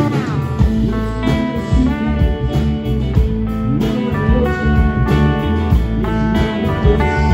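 Live blues-rock band playing: electric guitars over a drum kit, with a guitar line sliding down in pitch at the start.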